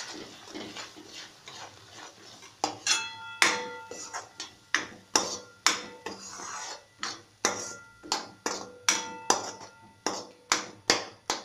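Steel spoon stirring a thick masala paste in a metal kadhai, scraping at first. From about two and a half seconds in, it knocks against the pan about twice a second, each knock leaving a short metallic ring.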